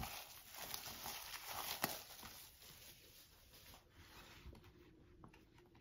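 Thin plastic shrink wrap crinkling as it is pulled off a large photo-book album, with a couple of sharp clicks in the first two seconds, then only faint handling of the book.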